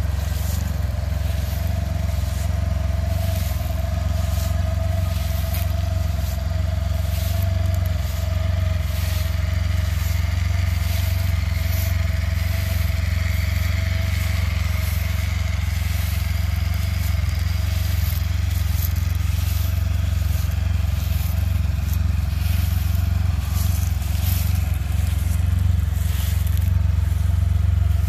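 A 2016 Can-Am Spyder F3-T's three-cylinder engine idling steadily, with dry fallen leaves crunching and rustling underfoot.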